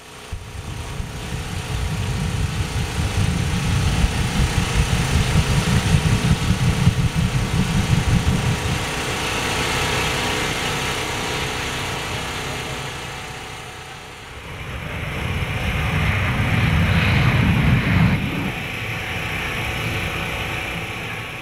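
Jet truck's jet engine running with its afterburner lit: a loud, rumbling jet noise that builds over the first few seconds, eases off about two-thirds of the way through, then swells again before settling.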